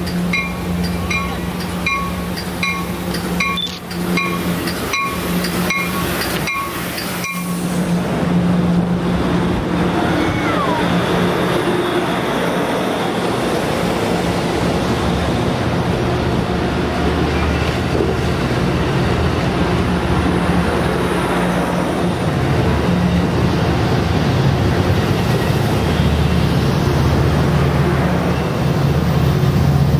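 Amtrak Pacific Surfliner passenger train with double-deck cars pulling out. A bell rings steadily, about three strokes every two seconds, and stops about seven seconds in. Then the train's rumble and wheel noise build as the cars roll past.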